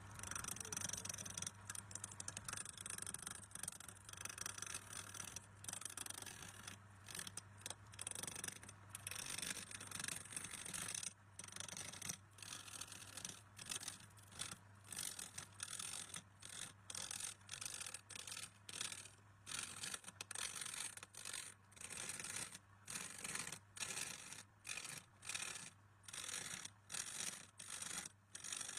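Repeated scraping or rubbing strokes of a hand tool on wood, continuous at first, then settling into a steady rhythm of about one stroke a second, over a faint steady hum.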